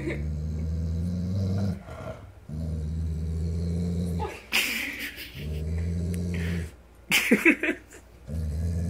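A dog growling at his own reflection in a mirror: four long, low growls of a second or two each, with two short sharp outbursts between them, one in the middle and one near the end.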